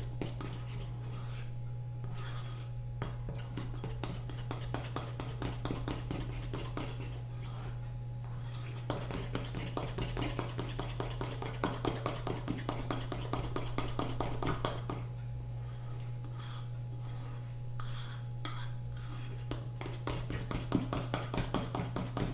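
Spoon stirring thick batter in a bowl: rapid scraping and clicking against the bowl, busiest in the middle and near the end, over a steady low hum.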